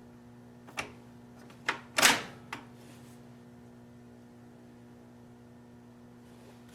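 Four sharp clicks about a second in, the third a louder, slightly longer rasp, over a steady low electrical hum.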